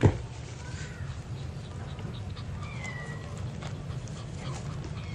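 A sharp thump at the very start, then a few short, thin, high-pitched mews that fall in pitch, spaced a second or two apart: newborn kittens mewing.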